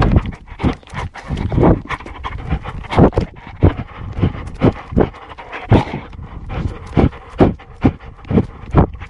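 A dog panting close to the microphone in quick, irregular breaths, with scattered thumps and rubbing noises.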